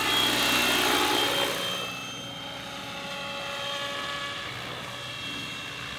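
Radio-controlled scale Robinson R22 helicopter built on Logo 600 mechanics flying past: a steady high-pitched whine with rotor rush. It is loudest for the first second or so as it passes close, then fainter as it moves away.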